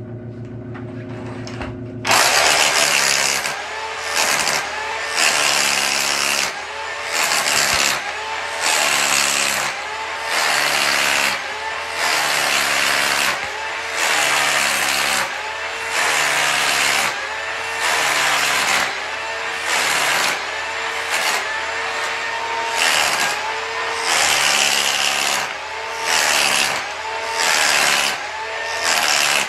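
Electric demolition hammer with a wide floor-scraper chisel chipping up old peel-and-stick floor tile. It starts loud about two seconds in and then goes in repeated pushes, swelling and easing every second and a half or so, the motor's pitch dipping and recovering with each push.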